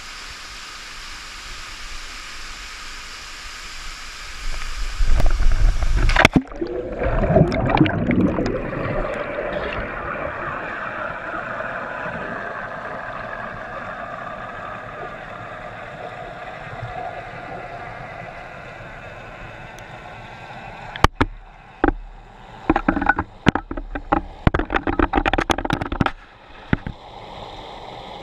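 Sound picked up by a GoPro in its waterproof housing: a steady hiss, then a loud low rumble that cuts off sharply as the camera goes underwater about six seconds in. Bubbling and gurgling follow and settle into a muffled underwater wash, with a run of sharp knocks near the end.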